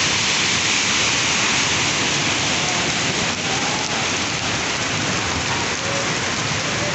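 Torrential rain pouring steadily onto a flooded street, a dense, even hiss.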